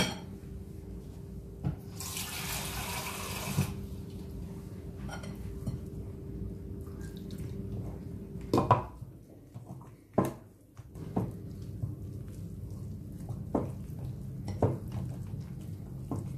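Water pouring for a couple of seconds, then a wire whisk working a flour-and-water batter in a glass bowl, with several sharp clinks of the whisk against the glass. A steady low hum runs underneath.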